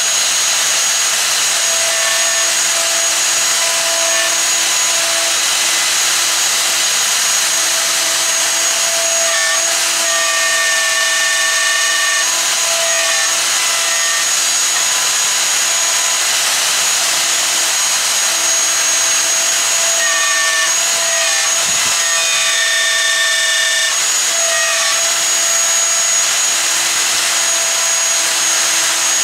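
Festool plunge router running at full speed with a steady high whine, its long half-inch straight bit plunging into a maple mallet head. Its tone changes around ten seconds in and again around twenty.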